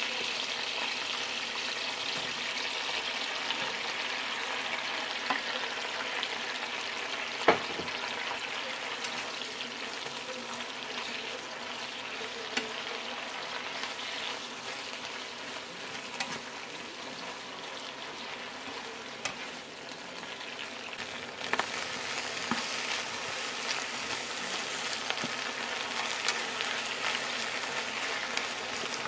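Eggplant slices frying in sauce in a nonstick pan: a steady sizzle, with a slotted spatula scraping and tapping against the pan as they are stirred. The sharpest tap comes about seven and a half seconds in.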